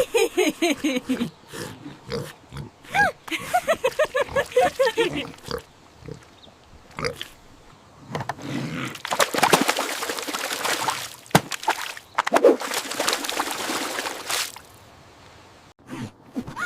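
A pig squealing and grunting in a quick run of short calls that slide up and down in pitch over the first five seconds or so. Later comes about six seconds of rushing, hissing noise with a single sharp click in the middle.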